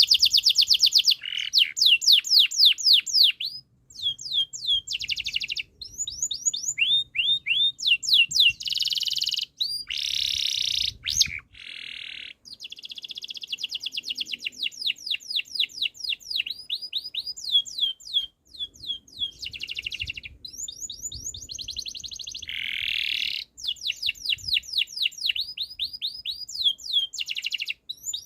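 Domestic canary singing a long rolling song: fast trills of repeated down-slurred whistled notes, each run lasting a few seconds, with short pauses and a few harsher rasping notes in between.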